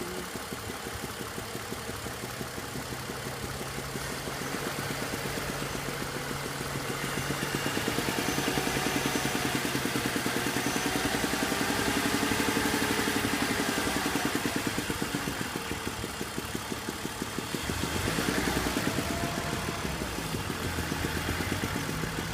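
BMW 330i engine idling with a slight misfire, which the owner notes set no check-engine light and left the revs unchanged. It runs somewhat louder through the middle stretch.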